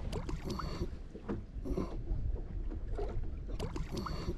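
Scattered knocks and clicks of handling in a small aluminium jon boat, over a steady low rumble.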